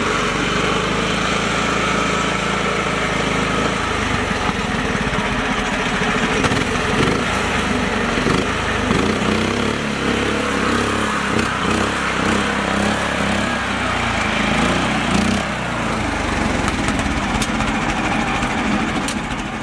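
Mini tractor's small engine running steadily under load as it drives through mud and water. Its note changes about four seconds in and again about nine seconds in.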